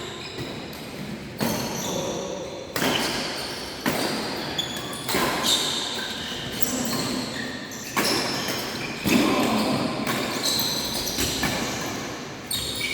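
Badminton rally: rackets striking the shuttlecock, about eight sharp hits one to two seconds apart, with short squeaks, echoing in a large sports hall.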